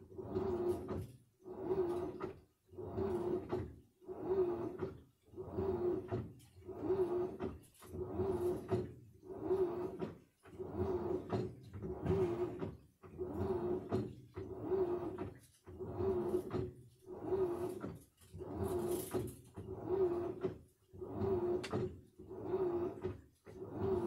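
Samsung front-loading washing machine in its wash cycle: the motor turns the drum in short strokes, roughly one a second, each stroke a hum with water sloshing through the clothes.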